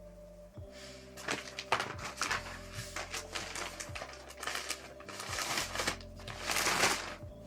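Background music, with bouts of rustling and scraping from handling packing materials and fabric. The loudest bout comes near the end.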